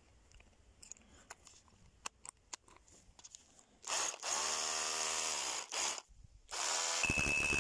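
Small clicks of an SDS-plus masonry bit being pushed and locked into the chuck of a Parkside PBHA 12 A1 12 V cordless hammer drill. About four seconds in, the drill spins up and runs free for about two seconds, then gives a short second burst. Near the end it starts hammer-drilling into brick, a rapid stream of blows with a steady high whine.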